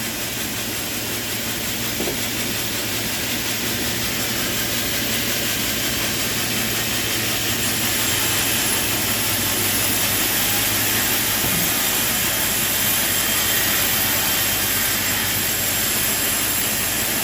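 Sawmill machinery running: a steady mechanical drone with a low hum under a broad hiss, growing slightly louder about halfway through.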